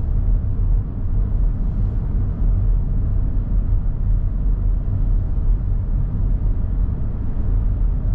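Steady low rumble of a vehicle driving along a road, heard from inside the cab.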